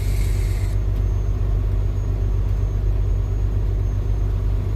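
Semi-truck diesel engine idling: a steady low rumble heard inside the cab. A short hiss sounds over it in the first second, then stops.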